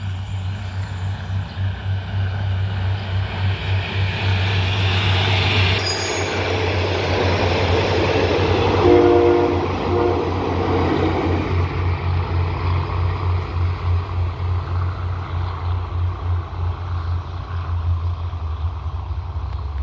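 Diesel railcar express train passing at speed over a short rail bridge: its running noise builds to a peak and fades away. Two short horn toots sound about nine and ten seconds in, over a steady low rumble.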